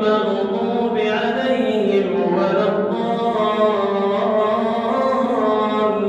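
A single man's voice chanting Quran recitation (tajwid) in a melodic style, drawing out long held notes that bend slowly up and down.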